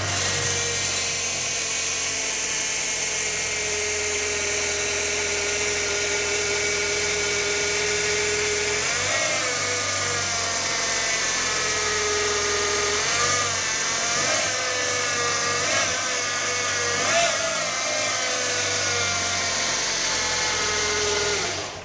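Fiat Palio Fire Evo engine idling with a steady whine above the engine note. It is briefly revved four times, the whine rising and falling with the revs. This is the engine noise whose cause the owner does not know.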